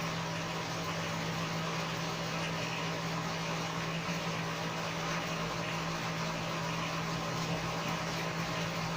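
Steady background hum and hiss with no events: room tone carrying a constant low hum.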